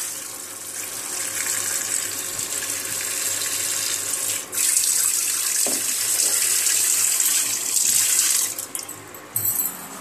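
Tap water running into a steel bowl of chopped vegetables as they are rinsed. The flow breaks briefly about halfway through and stops near the end.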